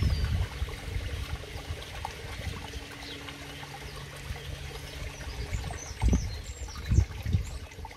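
Water steadily splashing and trickling into a garden koi pond from an outlet under a small bridge. Irregular low rumbles come and go, and a few faint bird chirps sound near the end.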